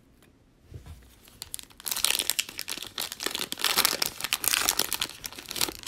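Foil wrapper of a trading card pack being torn open and crinkled by hand, a dense crackle starting about two seconds in.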